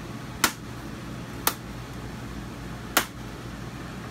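Plastic bezel of a trailer's wall switch panel being pressed and snapped into place by hand: three sharp clicks.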